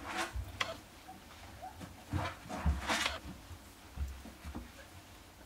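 A small puppy shifting on shredded-paper bedding as a hand strokes it: brief paper rustles, the loudest about three seconds in, and several soft low bumps.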